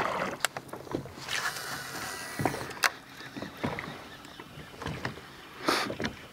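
Water lapping against the hull of a plastic sit-on-top fishing kayak, with irregular small clicks and knocks from rod, reel and tackle being handled.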